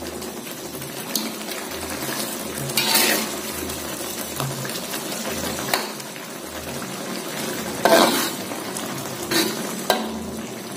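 Metal spoon stirring and scraping through simmering potatoes in a metal wok, over the steady hiss of the cooking. A few sharper scrapes of the spoon against the pan stand out, the loudest about eight seconds in.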